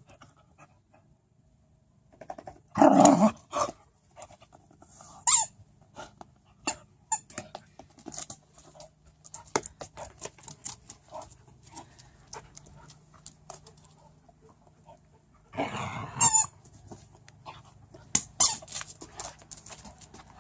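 Squeaky hedgehog dog toy squeaked again and again as a dog chews it, with short squeaks and chewing clicks. There are two louder, longer sounds, one about three seconds in and one near sixteen seconds.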